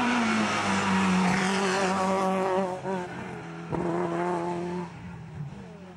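Rally car engine running hard at high revs as the car passes on the stage. The note drops briefly about three seconds in, picks up again, then fades as the car goes away.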